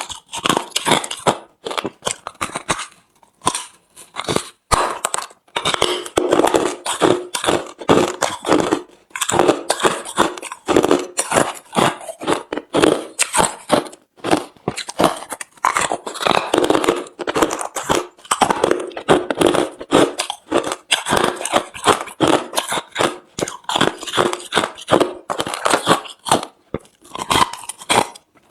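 Hard refrozen crushed ice being bitten and chewed, a rapid, loud run of crunches with a few short pauses.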